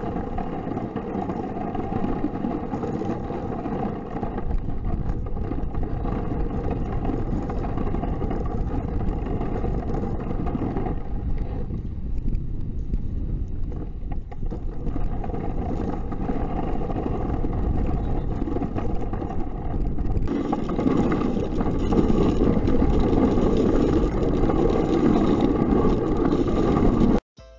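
Steady scraping rumble of a towed sled sliding over snow-covered ice, heard from the sled itself; it grows louder and harsher about two-thirds of the way through.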